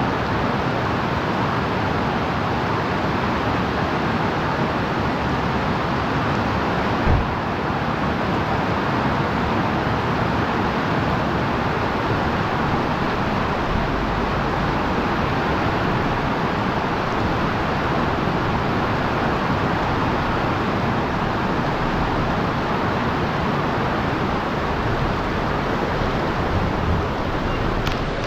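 Steady, dense noise of heavy rain and wet tyre and road noise from a car driving through a downpour, with a single thump about seven seconds in.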